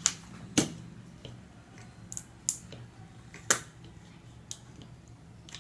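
Sharp clicks and cracks of hard plastic being pried and snapped: the loose center part that holds a clip fan's motor shaft being broken out. About six separate strikes, the loudest about half a second and three and a half seconds in.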